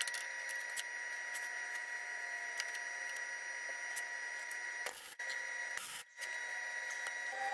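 Wire-feed (MIG) welder arc on steel frame tubing: a steady crackling hiss with a thin whine, breaking off briefly twice, about five and six seconds in.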